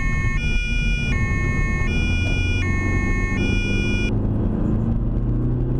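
German two-tone emergency vehicle siren (Martinshorn) alternating between a high and a low note, each held under a second, cutting off about four seconds in. Under it, the car's engine and tyre noise heard from inside the cabin, rising in pitch as the car speeds up.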